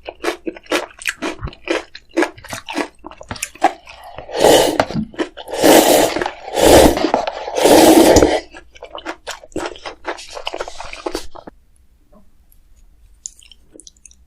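Close-miked chewing of food: quick wet chewing clicks, then four loud noisy bursts about a second apart in the middle, then softer chewing that stops a few seconds before the end.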